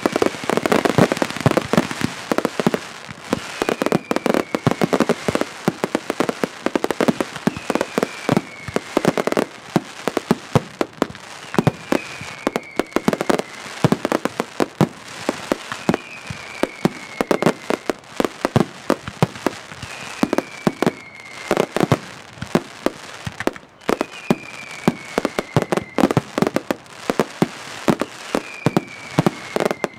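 Mascletà firecrackers going off in a continuous rapid barrage of sharp bangs, on the ground and bursting in the air. A short falling whistle comes back about every four seconds.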